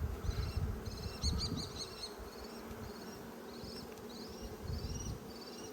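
Honeybees buzzing in a steady hum around an opened hive. Low rumbles from handling or wind come in the first two seconds and again near the end, and a run of short, high chirps sounds over the top.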